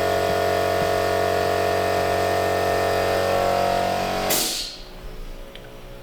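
A motor-driven machine running with a steady hum, cutting out about four seconds in with a short burst of hiss.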